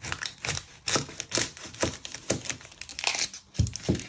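Kitchen knife cutting the ends off a papery-skinned onion on a wooden chopping board: the dry skin crackles and snaps irregularly as the blade goes through, with two heavier knocks of the blade on the board near the end.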